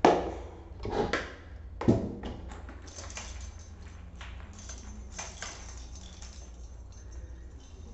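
Small balls bouncing and knocking on a tiled floor: three sharp bounces in the first two seconds, then lighter scattered taps.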